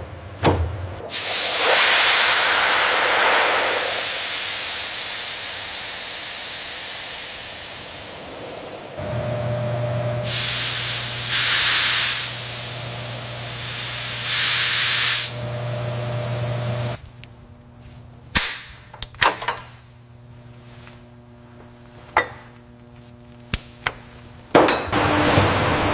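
Factory machinery: long bursts of loud hissing spray or air, first one long hiss that slowly fades, then several shorter bursts over a steady low hum. After that comes a quieter stretch with sharp clicks and knocks.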